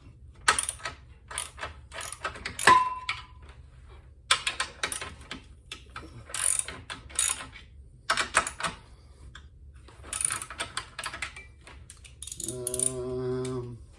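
Hand ratchet wrench clicking in repeated quick bursts as the treadmill motor's mounting bolts are loosened, with a short metallic ring about three seconds in.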